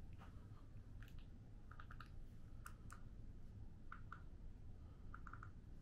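Faint clicks of buttons being pressed several times to switch on a TV hidden in a mirror, some in quick twos and threes, over quiet room tone.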